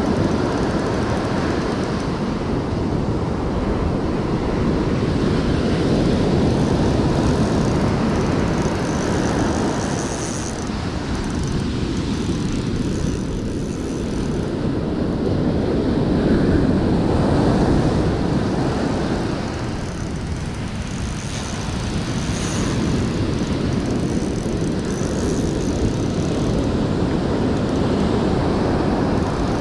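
Wind buffeting the microphone over surf breaking and washing up the beach: a loud, steady low rush that swells and eases every several seconds.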